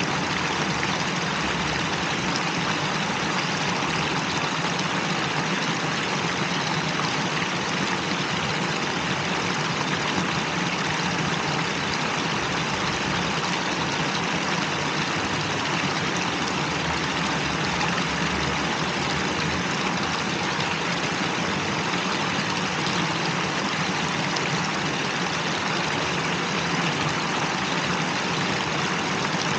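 Small fountain jets splashing steadily into a stone basin: an even, unbroken rush of water, with a low steady hum underneath.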